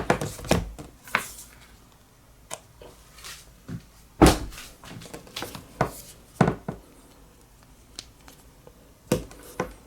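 Scattered clicks and knocks from hands handling a device in its case and a magnetic Lightning charging connector, one knock about four seconds in louder than the rest.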